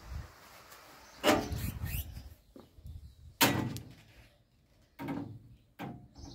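A conservatory door and its fly screen being pushed open, then steps down outside: about five separate knocks and thuds, the loudest about halfway through.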